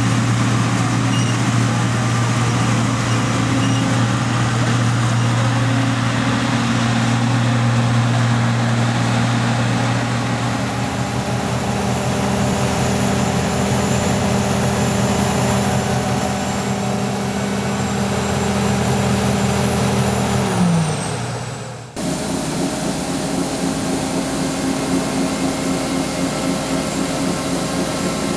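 John Deere C670 combine harvester running steadily, a deep engine hum with a high whine over it. About twenty seconds in, the pitch slides down and the sound fades, then breaks off suddenly into a similar steady machine drone.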